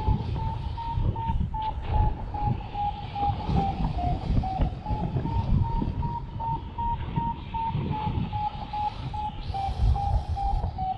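Paraglider variometer giving its climb tone: short beeps at about two to three a second, their pitch wavering slightly as the lift changes, a sign that the glider is climbing in rising air. Wind buffets the microphone underneath.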